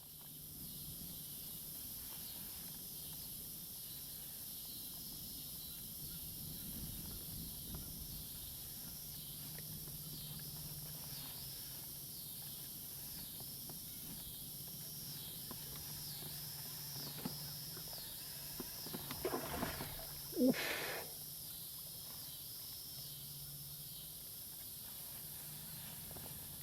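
Outdoor evening ambience: insects chirping in a steady rhythm about once a second over a high hiss, with a brief louder call about twenty seconds in.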